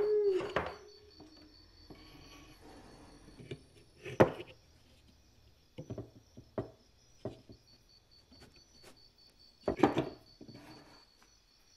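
Scattered knocks and thuds of the axe and tools being handled on a workbench, loudest about four seconds in and again near ten seconds, with lighter taps between. A short wavering squeak comes right at the start, and a faint steady high whine runs behind.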